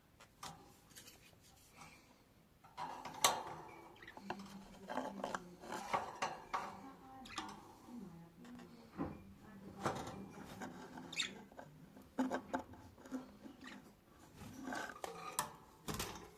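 Irregular light clicks, taps and rustling, starting quietly and getting busier about three seconds in, typical of a baby budgie scrabbling about on a hard surface or in bedding.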